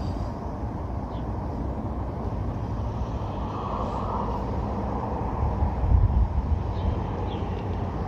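Steady low rumble of outdoor background noise, growing louder for about a second around six seconds in, with a few faint ticks.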